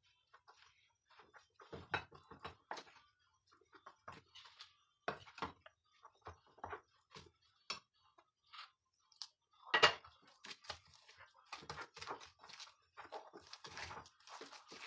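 Metal spoon stirring and scraping a crumbly pancake batter in a glass bowl: irregular clinks and scrapes, with one sharper knock about ten seconds in, the stirring getting busier near the end.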